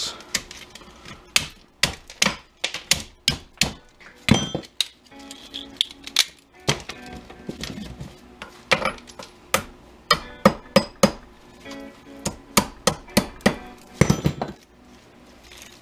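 A hammer striking small metal parts on a workbench to knock them apart: many sharp knocks and clinks at irregular intervals, some ringing briefly.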